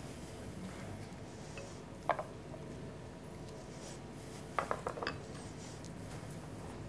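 A few short, light clicks over quiet room tone: one about two seconds in, then a quick run of four about four and a half seconds in.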